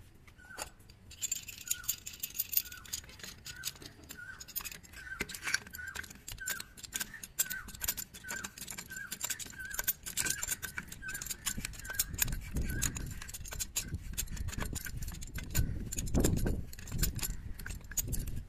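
PVC threaded adapter being screwed into the port of a half-horsepower monoblock water pump, then tightened with a steel pipe wrench: dense clicking and scraping of the threads, metal clinking from the wrench, and heavier knocks and handling noise in the last few seconds.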